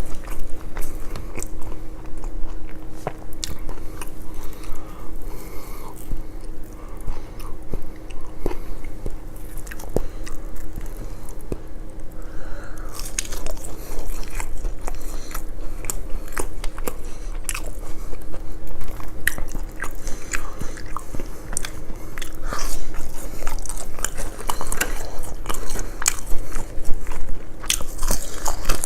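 Close-miked eating of battered fried fish and fries: crunchy bites and chewing, with many irregular crisp crackles that come thickest in the second half.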